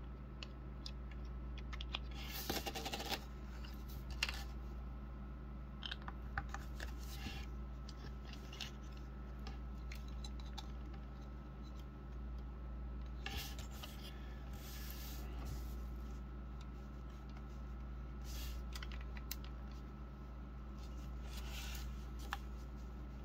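Hard plastic parts of an action figure and its clear display stand being handled: scattered small clicks and taps with brief scraping rubs as the stand's plastic arm is fitted into the motorcycle.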